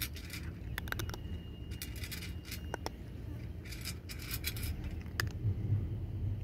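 A cat crunching dry kibble from a stainless steel bowl, with a few sharp clicks of kibble against the metal, in irregular bursts a second or less long. A steady low rumble runs underneath.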